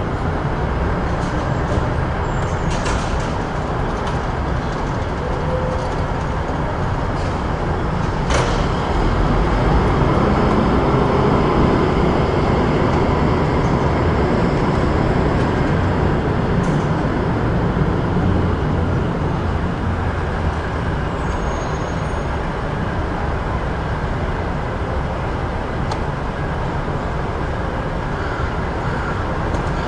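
Busy city street ambience: a steady low rumble of traffic that swells for a few seconds around the middle, with a sharp click about eight seconds in.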